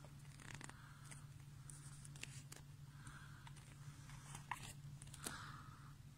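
Near silence: indoor room tone with a steady low hum and a few faint scattered clicks.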